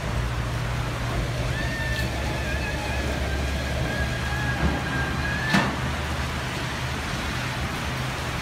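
Heavy rain and cars passing on a wet street: a steady hiss over a low rumble. A long high tone rises above it from about a second and a half in and lasts about four seconds, with two sharp clicks about two and five and a half seconds in.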